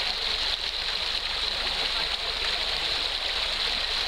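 Steady rushing of a small woodland stream, an even hiss with no breaks.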